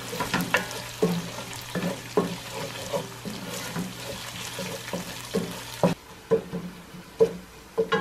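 A wooden spoon stirring and scraping a stainless steel pot of spiced mixture frying in oil, with irregular knocks of the spoon against the pot over a light sizzle.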